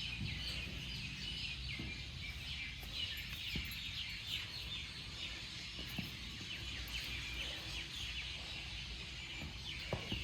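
Many small birds chirping busily over a low background rumble, with a few sharp knocks, the loudest near the end.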